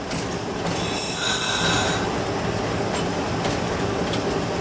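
Inside the cab of a moving GE B23-7 diesel locomotive, the engine drones low and steady under the rumble of the wheels on the rails. About a second in, a high wheel squeal with a hiss rises for about a second and then fades.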